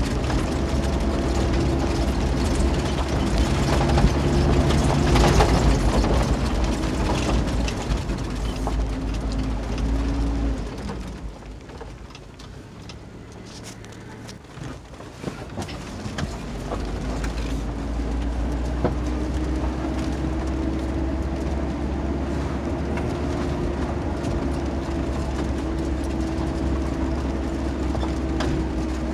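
Cabin noise of a 2020 Kia 4x4 driving on a rocky gravel road: a steady engine drone and tyre rumble, with clicks and rattles from stones. About ten seconds in the engine note drops and the noise eases off for several seconds. Then the engine note climbs again as the vehicle picks up speed.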